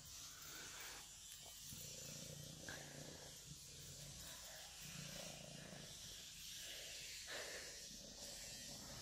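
Tortoiseshell kitten purring, the purr swelling and easing in cycles of about two seconds with its breathing.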